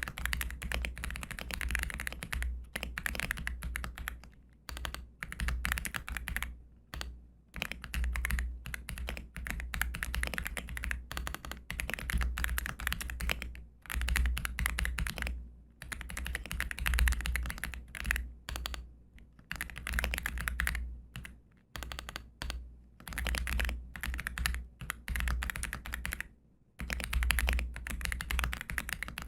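AULA F87 Pro mechanical keyboard with Grey Wood linear switches being typed on: fast runs of keystrokes broken by short pauses every few seconds.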